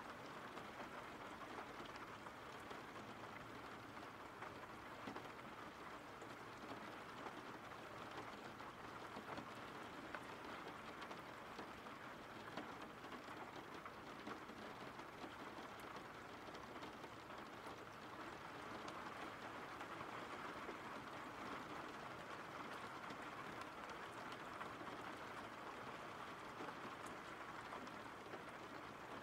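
Quiet, steady rain falling, an even, unchanging wash of many small drops.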